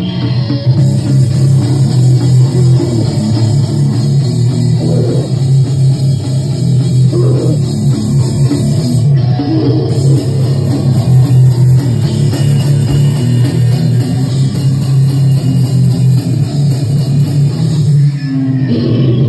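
A live rock band playing loudly: guitar, bass and drum kit.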